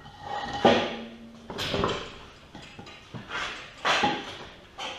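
A series of hard metallic clanks and knocks from engine parts and tools being handled and set down. The loudest come just under a second in and about four seconds in, and the first rings briefly.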